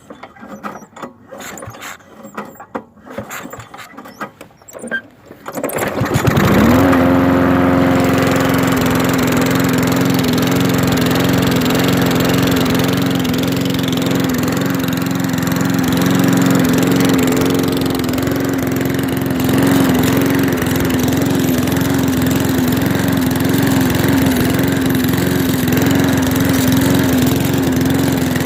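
Walk-behind lawnmower's small single-cylinder engine. There are a few seconds of irregular knocking and clatter, then the engine catches about six seconds in and runs loud and steady at an even speed.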